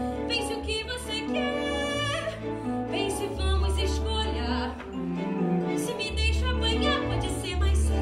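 A woman singing a musical-theatre song in Portuguese, her sustained notes wavering with vibrato, over instrumental accompaniment.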